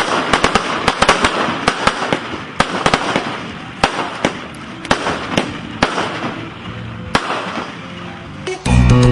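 Fireworks going off: a rapid run of sharp cracks and pops over a crackling hiss, dense at first and thinning out toward the end. Music comes in just before the end.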